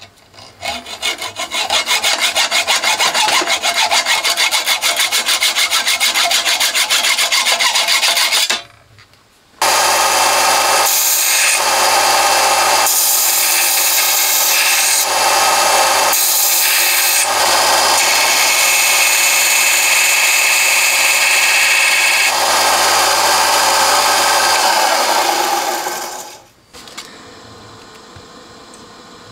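Rapid back-and-forth strokes of a hand tool cutting down a potentiometer's metal shaft for about eight seconds. After a short pause, a small power tool runs steadily with a low hum for about fifteen seconds, grinding a tang off the pot, then stops.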